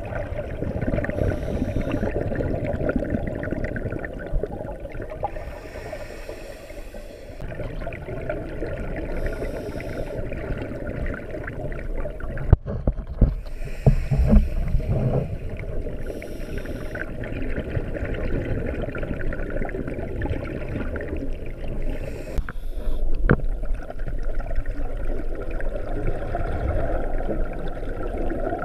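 Muffled underwater sound of scuba diving: a diver's regulator breathing and exhaled bubbles gurgling, a breath every few seconds over a steady low rumble. About halfway through there are a few sharp knocks and a louder burst of bubbling.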